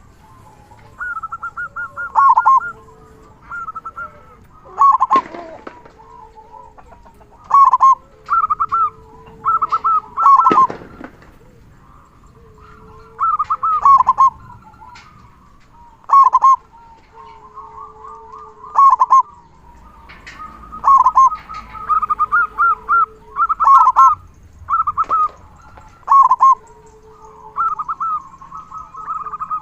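Local perkutut (zebra dove) cooing over and over. Each phrase is a quick series of rattling notes, and phrases follow one another every second or two.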